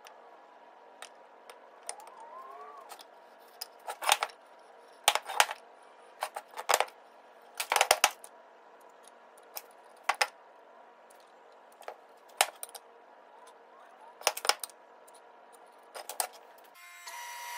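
Wooden boards being picked up and set down on a workbench: scattered knocks and clatters of wood on wood, loudest between about 4 and 8 seconds in. Right at the end a table saw starts running with a steady whine.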